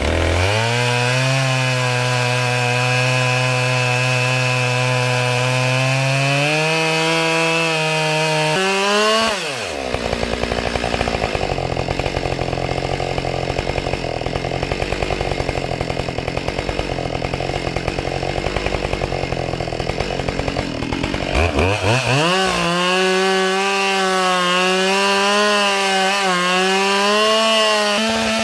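Husqvarna 572XP two-stroke chainsaw with Oregon RD ripping chain running at high speed, ripping lengthwise along a log in a freehand milling cut. The engine note changes sharply about nine seconds in, turns rougher and noisier through the middle, then comes back about twenty-one seconds in and holds higher toward the end.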